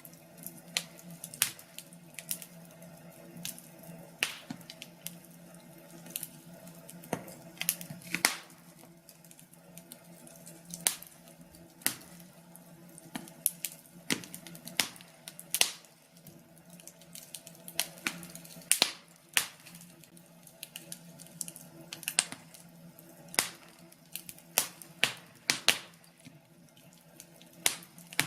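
Wood fire crackling: irregular sharp pops and snaps, sometimes several a second, over a faint steady low hum.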